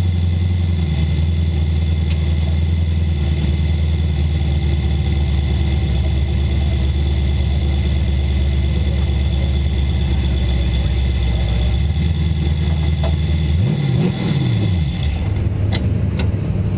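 Sport mod dirt-track race car's engine idling steadily, heard from inside the cockpit. About fourteen seconds in it revs up briefly and drops back to idle, and a few sharp clicks come near the end.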